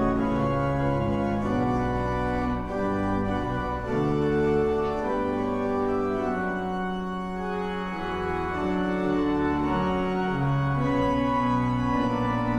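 Church organ playing a postlude: sustained full chords over a deep bass line, the harmony changing every second or so.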